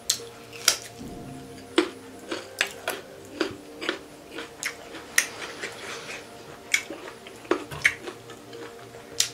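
Close-up eating sounds of a mukbang: sharp, irregular mouth clicks and smacks of chewing, about one or two a second, over soft background music.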